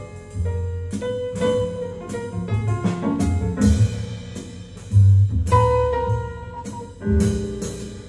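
Jazz with a drum kit, a low bass line and sustained melody notes, played back through a pair of Stenheim Alumine 2.5 floor-standing loudspeakers.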